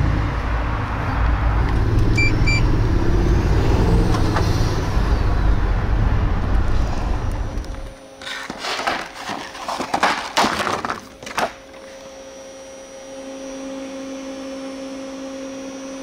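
Steady low vehicle and road noise, with two short high beeps about two seconds in. About eight seconds in it gives way to the crinkling of a plastic blister pack being handled for a few seconds, and then a steady electrical hum.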